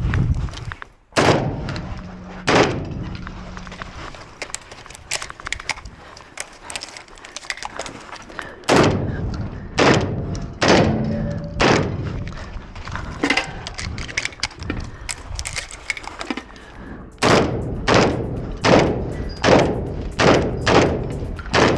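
Shotgun fired in strings of shots during a timed IPSC course of fire: two shots near the start, a pause, a cluster of shots in the middle, then a quicker run of shots roughly every half second near the end. Lighter clicks and knocks fall between the shots.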